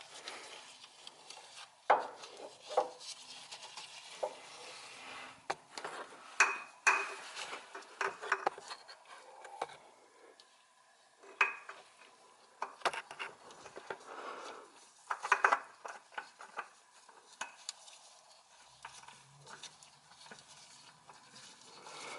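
Irregular light clinks, knocks and scrapes of a new spin-on oil filter and hands working against metal parts under the car as the filter is fitted and threaded on by hand.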